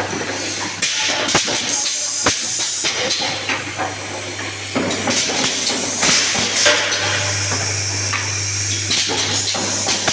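Automatic confetti filling machine running: repeated hissing of air and sharp mechanical clicks over a steady low hum.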